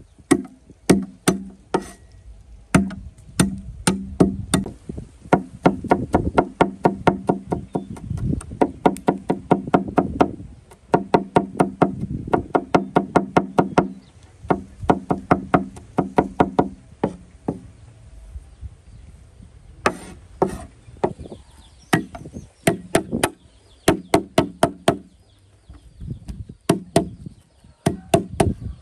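Knife chopping on a wooden cutting board in quick runs of several strokes a second, with short pauses between runs.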